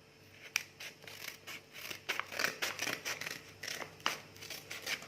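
Plastic packaging of a spool of braided fishing line crinkling and tearing as it is handled and opened, in irregular short crackles that grow busier about two seconds in.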